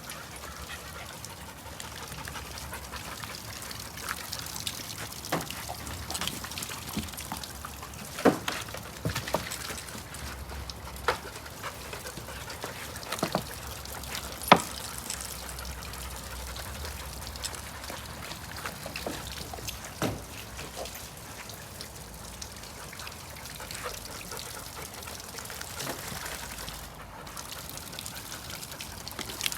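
Water trickling and splashing steadily, with a few short, sharp splashes scattered through.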